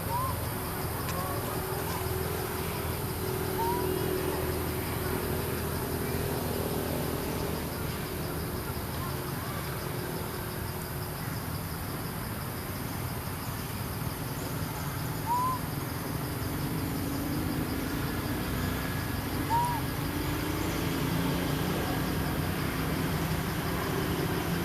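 A handful of short, high coo calls from monkeys, each rising and falling in pitch, spaced several seconds apart over a steady low background rumble.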